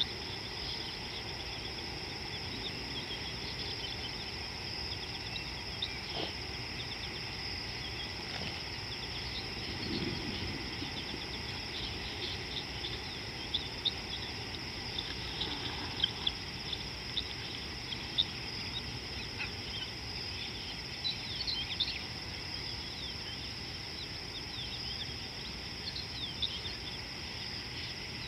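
A steady high drone of insects, with short bird chirps scattered through it, more of them in the second half, over a low background rumble.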